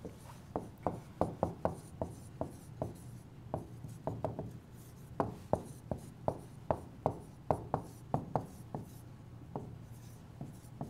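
A stylus writing by hand on an interactive touch display: a string of irregular light taps and clicks against the screen, a few a second, as figures are written out.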